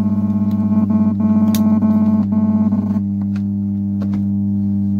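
4440 IC power amplifier putting out a deep, steady mains hum under the music it is playing. The music stops about three seconds in and leaves the hum on its own. The repairer suspects a small capacitor on the board of causing the hum.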